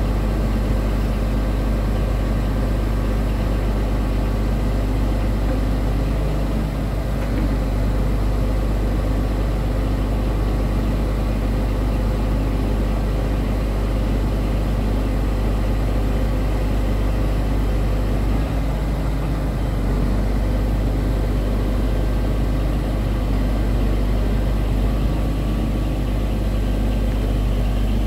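Scania R truck's diesel engine idling steadily, driving the hydraulics of the Palfinger loader crane as its boom unfolds and extends.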